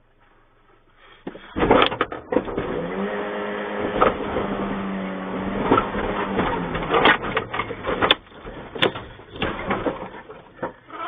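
An elephant crushing a truck's bonnet: repeated loud bangs and crunches of sheet metal, with a steady held tone through the middle few seconds that sinks slightly as it ends.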